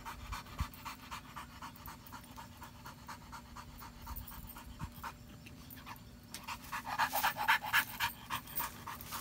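A dog panting rapidly with its tongue out, about three to four breaths a second, getting louder over the last couple of seconds.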